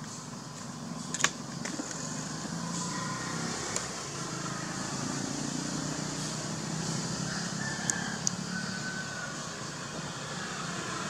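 Steady low background hum of distant traffic, with a few short sharp clicks, the loudest about a second in.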